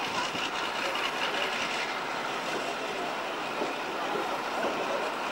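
Western-class and Warship-class diesel-hydraulic locomotives standing with their Maybach engines idling: a steady, even engine noise with no sudden events.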